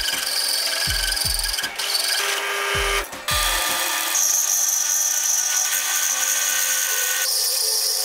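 Drill press (mill-drill) cutting a coolant-flooded metal plate, first with a hole saw and then, after a cut about three seconds in, with a small end mill: a steady machine whine with high fixed tones. Bass drum beats of background music thud through the first half.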